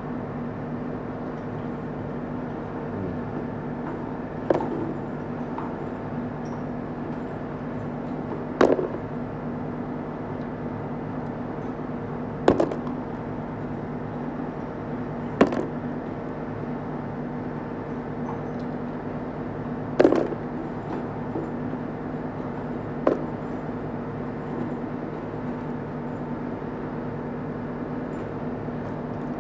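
Small metal engine parts, such as roller followers and lifters, clinking sharply about six times at irregular intervals as they are handled and set down, over a steady hum.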